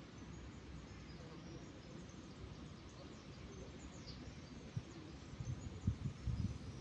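Faint songbird chirps over a steady low outdoor rumble, with one short falling chirp about four seconds in. Several low thumps stand out near the end.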